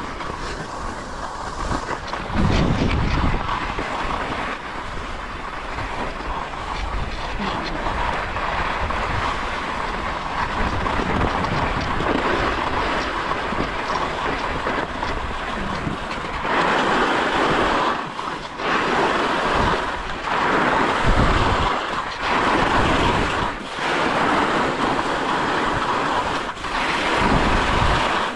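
Skis hissing and scraping over snow on a descent, with wind rushing across the microphone. In the second half the noise swells and cuts back briefly several times.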